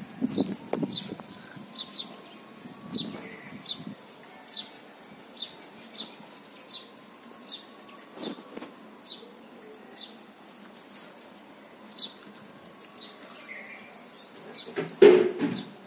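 A bird chirping over and over, short high chirps a little over one a second, over outdoor background noise. Soft rustling in the first few seconds and a loud sudden bump with rustling near the end.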